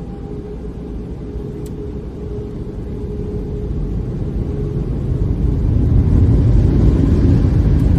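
Low rumbling noise that grows louder over a few seconds, then holds steady. A faint steady tone fades out about halfway through.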